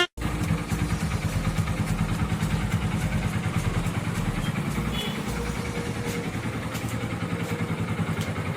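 Hero Glamour's single-cylinder four-stroke engine running steadily, freshly serviced with new engine oil and air filter. It ticks over evenly with no revving, after a short click at the very start.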